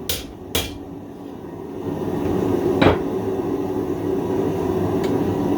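Hammer blows on hot steel at an anvil: two sharp strikes at the start, a louder ringing strike about three seconds in, and a faint tap near the end. A steady rumbling noise swells up underneath from about two seconds in.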